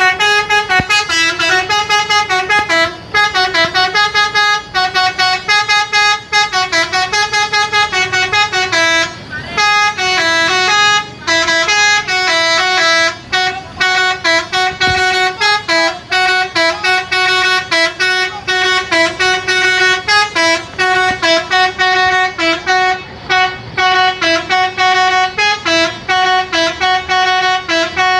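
Bus telolet horn, the Indonesian multi-tone horn, playing a quick melody of short notes one after another, almost without a break.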